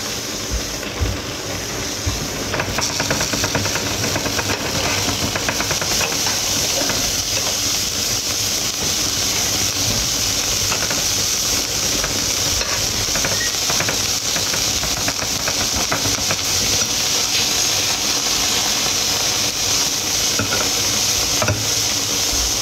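Thick cheese sauce simmering in a frying pan, a steady hiss with fine crackling bubbles that grows louder about two seconds in.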